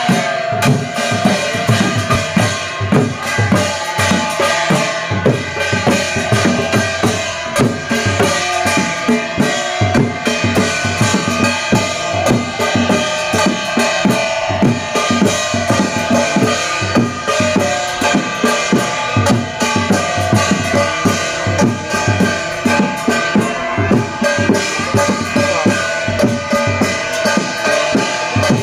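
Fast, loud drumming on a double-headed barrel drum (dhol), struck in a dense, driving rhythm, with steady held tones sounding above the beat.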